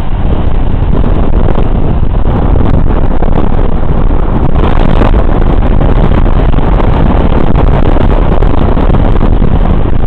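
Strong wind buffeting the microphone: a loud, steady rumble with no let-up.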